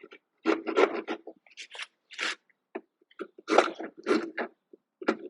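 Hand file scraping across wood in short, uneven strokes with brief pauses, smoothing the faces of a half-lap joint.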